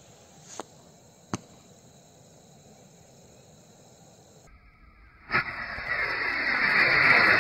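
Diwali sky rocket fireworks: two sharp pops as the rocket in flight bursts. About five seconds in, the next rocket ignites on the launcher with a sudden loud hiss that swells as it burns.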